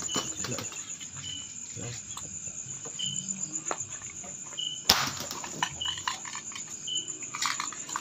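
Crickets keeping up a steady high trill, with a short chirp repeating every second or so. Scattered rustling and handling noise, and one sharp click about five seconds in.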